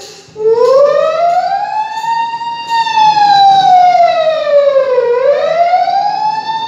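A man imitating a wailing ambulance siren with his voice into a handheld microphone. It is a slow rise and fall in pitch: after a brief break just after the start it climbs for about two seconds, sinks for about two and a half, then climbs again near the end.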